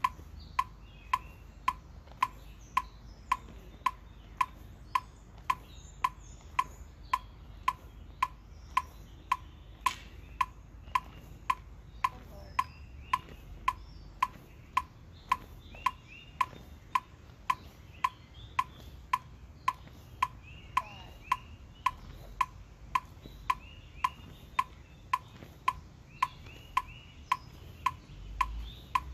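Metronome clicking steadily at about two beats a second, keeping time for flag spinning practice.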